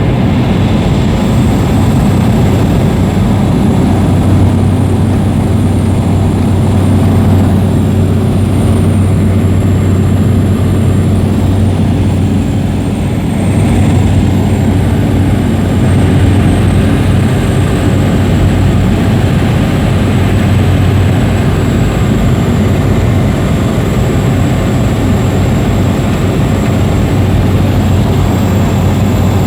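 Propeller aircraft engine droning steadily, loud, with a constant low hum and no change in pitch.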